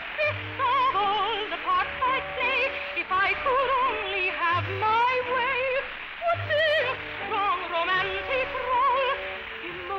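Operatic soprano singing a wordless vocalise with wide vibrato, running up and down high notes, over a light orchestral accompaniment. The sound is narrow and dull, as in a late-1940s broadcast recording.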